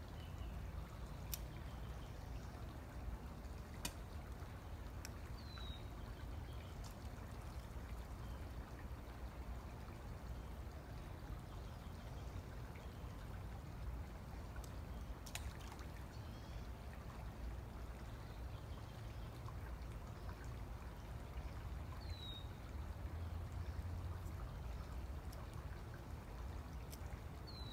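Steady low rushing outdoor noise, with three short high falling chirps from a bird and a few faint clicks.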